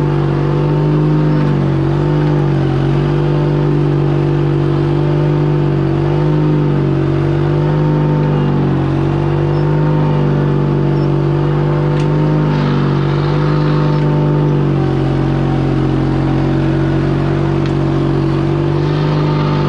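Case 1816 mini skid steer's engine running, its pitch dipping and recovering again and again under the load of digging, then holding steady a little lower near the end. A drive belt is squalling on one side of the machine, not yet fixed.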